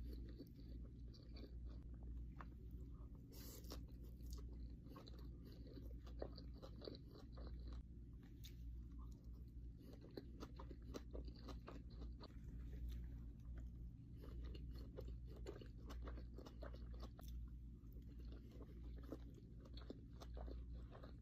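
Close-miked chewing of sushi: irregular wet mouth clicks and chewing, with a steady low hum underneath.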